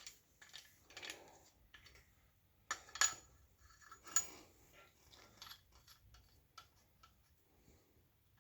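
Scattered light metallic clinks and taps as steel main bearing caps and their bolts are handled and seated on a small-block Chevy engine block. The two loudest clinks, about three and four seconds in, ring briefly.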